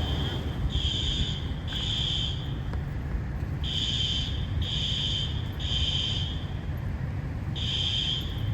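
Building fire alarm sounding the temporal-three evacuation pattern: three short high-pitched blasts, a brief pause, then three more, repeating over a steady low rumble.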